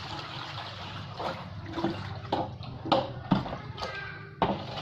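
A knife cutting along the body of a large snakehead fish: a series of short scraping strokes about every half second, after a stretch of steady hiss.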